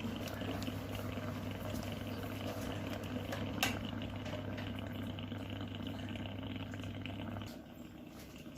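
Electric steam inhaler heating its water to a boil: a steady electrical hum with water bubbling and hissing as the steam comes out. A single click about three and a half seconds in, and the hum cuts out near the end.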